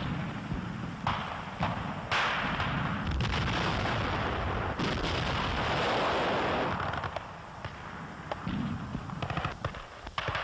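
Battle sound on an old wartime newsreel soundtrack: single gunshots and gunfire over a low rumble, with a long rushing blast in the middle and a quick run of sharp shots near the end.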